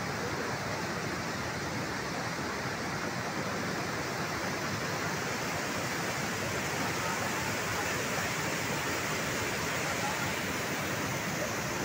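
Steady rushing of flood-swollen stream water, an even, unbroken noise throughout.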